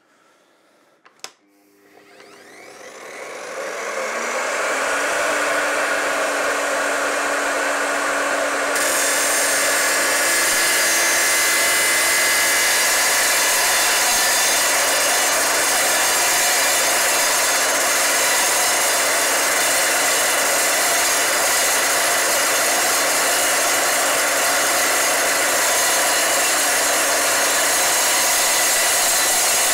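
Evolution R255SMS sliding mitre saw switched on with a click and its motor spinning up to speed over a few seconds, with a rising whine. About nine seconds in the blade starts cutting 2.7 mm steel sheet, a loud, steady, hissing metal-cutting noise that continues.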